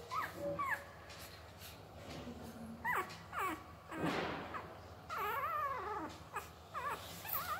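Newborn puppy whimpering: a string of short, high cries that slide in pitch, with a longer wavering cry about five seconds in.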